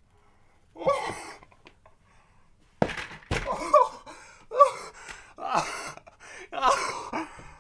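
A man gasping and letting out wordless, breathy exclamations of disbelief in short bursts, with two sharp knocks close together about three seconds in.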